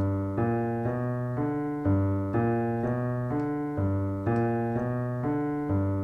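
Piano playing a blues walking bass in the left hand, one bass note per beat at about two notes a second, under sustained chords.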